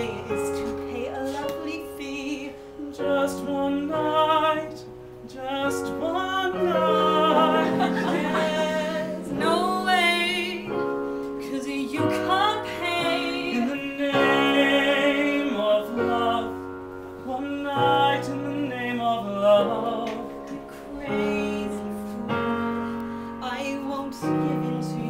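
A woman singing a love-song duet over an instrumental backing with piano, holding long notes with a wavering vibrato.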